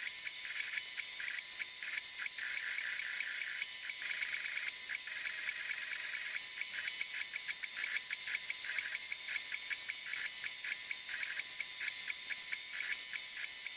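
CNC router spindle running, a steady high-pitched whine and hiss, as a fine engraving bit cuts lettering into hardwood.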